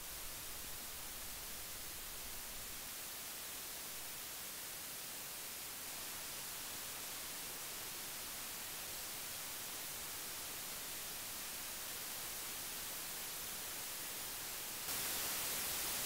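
Steady hiss of audio-interface mic preamp noise floors, played one after another: Solid State Logic SSL 2, Arturia MiniFuse, then Steinberg UR22C. About 15 s in, the hiss steps up clearly louder as the noisier Steinberg UR22C preamp takes over.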